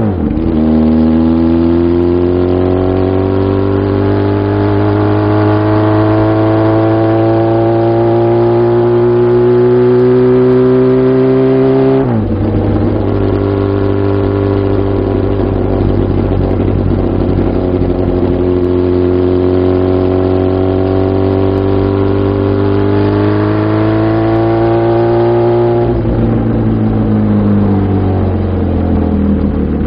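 Kawasaki Z750FX-1's air-cooled inline-four running through a Moriwaki racing exhaust, heard from the rider's seat on the move. The exhaust note climbs steadily under throttle, drops sharply at a gear change about twelve seconds in, holds and climbs again, then falls away as the throttle closes near the end.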